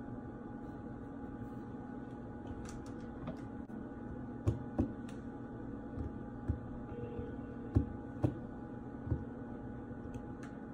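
Fingers tapping on a kitchen countertop: a handful of sharp, irregular taps in the second half, over a steady background hum.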